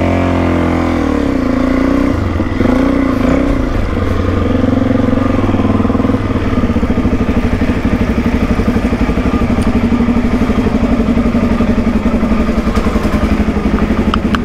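Suzuki DR-Z400E single-cylinder four-stroke engine running at low revs while the bike rides slowly up onto a vehicle barge. The revs rise and fall in the first few seconds, then settle to a steady, evenly pulsing idle for the second half.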